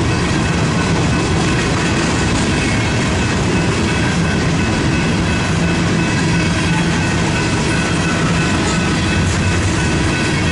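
Freight train running by, a steady, loud rumble of wheels on rail with steady tones riding over it.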